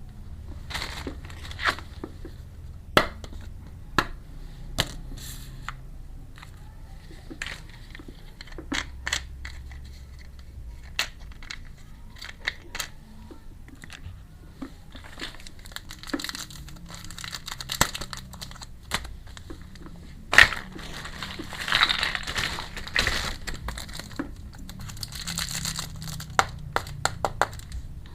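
Crinkling of plastic packaging and sharp clicks of small hard toy pieces being handled while a miniature toy kitchen set is unboxed. The crinkling comes in stretches, loudest about two-thirds of the way through.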